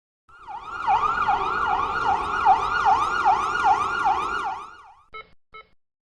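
Emergency vehicle siren in a fast yelp, its pitch sweeping up and down about two and a half times a second, then cutting off and giving two short chirps near the end.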